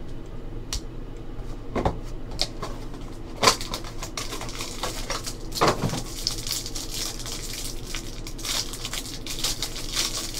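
Cellophane wrapper on a trading-card pack crinkling as it is handled and torn open, with several sharp knocks and taps from the pack being handled. The crinkling turns dense and continuous from about the middle on.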